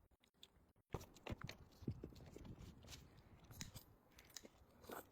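Faint crunchy biting and chewing of food, a string of sharp crunches and clicks starting about a second in after a moment of silence.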